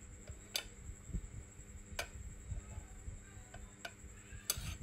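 A few light, sharp clicks of utensils against dishes, irregularly spaced a second or two apart.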